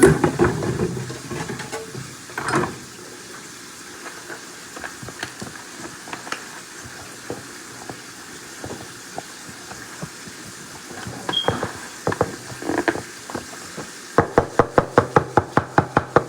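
Kitchen clatter and a few scattered knocks over a faint steady hiss, then near the end a fast, even run of sharp knocks, about six or seven a second.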